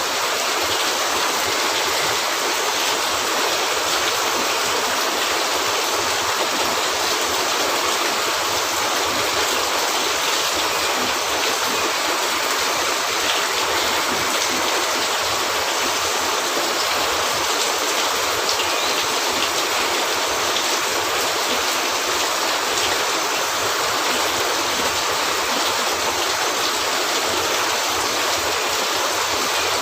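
Steady rain falling on a cabin roof, a dense, even hiss that does not let up.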